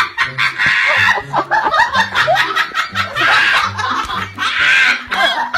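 Background music with a repeating bass line, with laughter over it.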